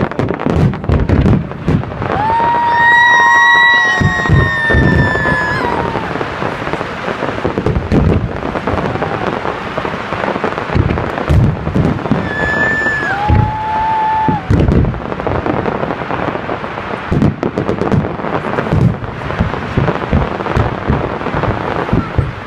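Festive fireworks salute: a steady run of booming bursts and crackles, one after another. Over it comes a long high-pitched tone about two seconds in, and a shorter one midway.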